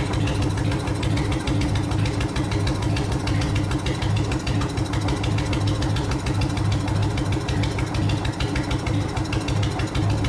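Car engine idling steadily through its side-exit exhaust pipes, loud, with an even pulsing beat.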